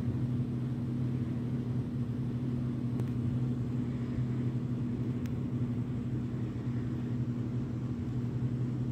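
A steady low hum with a deep rumble beneath it.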